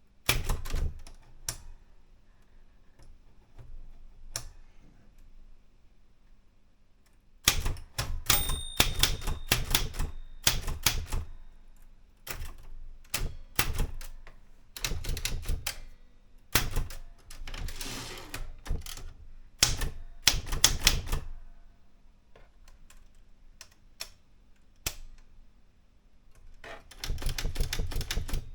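Erika 105 manual typewriter being typed on in bursts of rapid keystrokes separated by short pauses, with a brief ringing tone about eight seconds in.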